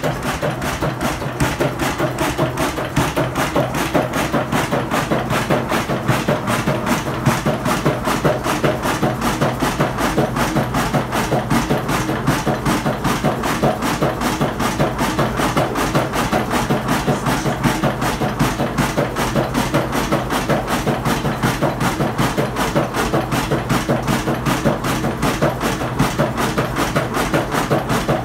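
Ruston Hornsby single-cylinder horizontal stationary engine running steadily, its fast, even beat of sharp knocks carrying over a steady low hum.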